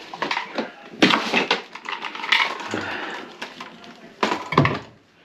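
Knocks and clattering from the wooden cabinet under a kitchen sink being opened and handled, with two sharp knocks near the end.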